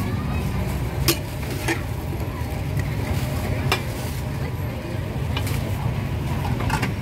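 Food sizzling as it is stirred in a pan, with several sharp clicks of a utensil against it, over a steady low rumble.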